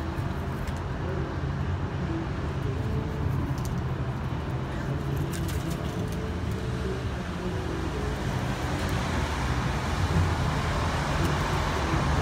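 Steady low rumble of road traffic, with a few faint clicks about five and a half seconds in.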